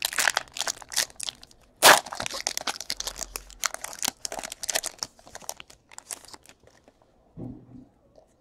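Foil wrapper of a trading card pack being torn open and crinkled by hand, with a sharp loud rip about two seconds in; the crackling thins out after about six and a half seconds as the cards come out.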